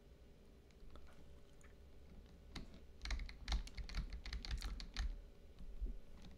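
Clicks and taps on a computer keyboard with soft low thumps, a quick run starting about two and a half seconds in and lasting about two and a half seconds, after a faint hush.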